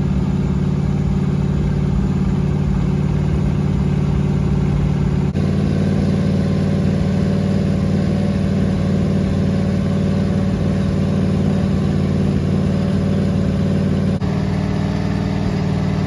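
Mopar 440 big-block V8 running at a steady speed on an engine run stand during its break-in, exhausting through a short open pipe with no muffler. The sound breaks off abruptly and resumes twice.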